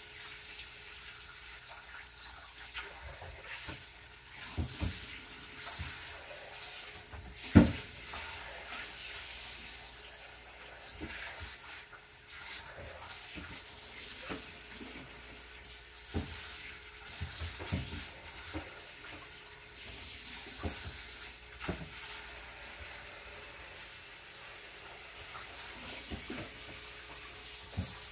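Kitchen tap running into a sink while bowls are rinsed out, with scattered knocks and clatters of the bowls, the loudest about seven and a half seconds in.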